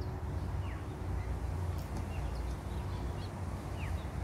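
Steady low background rumble with a few short, falling bird whistles, one about a second in and one near the end.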